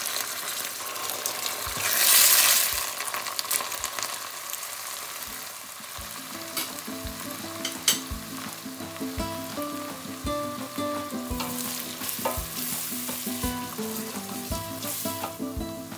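Onions and paste frying in hot oil in a stainless steel pot. The sizzle surges loudly about two seconds in as the paste goes into the oil, then frying goes on steadily while a wooden spoon stirs, knocking now and then against the pot.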